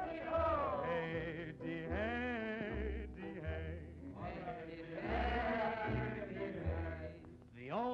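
A male jazz singer's wordless scat vocals, long wavering notes sliding up and down, over an early-1930s jazz big band with a steady walking bass.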